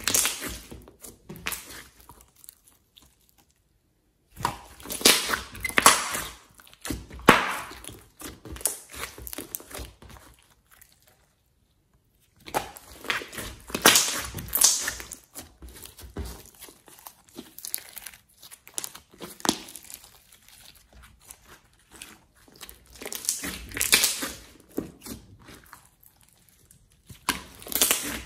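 Thick glossy slime squeezed and kneaded by hand, giving runs of sticky crackles, clicks and small pops of trapped air, in bursts with two short silent pauses.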